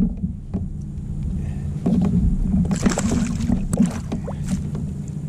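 Knocks and rattles on a kayak over a steady low hum, with a brief hiss about three seconds in.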